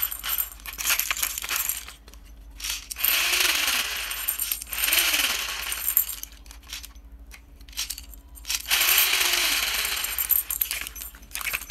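Small plastic balls rattling and clattering inside the clear plastic domes of a toy train as it is turned over in the hands. The clattering comes in three stretches of a few seconds each, with short quiet gaps between them.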